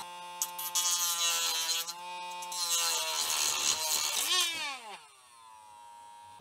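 Dremel rotary tool with a cut-off wheel running at high speed, a whining motor with rough grinding as it cuts down a plastic screw post of a computer case. Near the end its whine drops in pitch and it runs more quietly.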